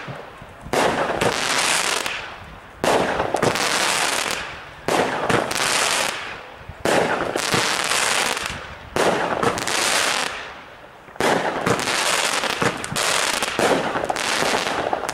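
Weco Double Cross consumer firework battery firing about seven crackling shots, roughly one every two seconds. Each shot starts with a sudden bang, followed by a dense crackle that fades away.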